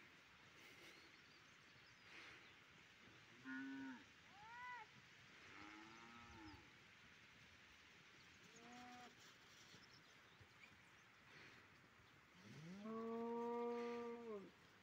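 Cattle mooing in a herd: a few short calls, then one long moo of about two seconds near the end, the loudest.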